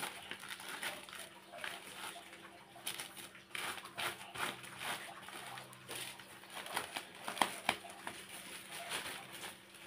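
Thin plastic bags rustling and crinkling in irregular short crackles as they are handled and packed.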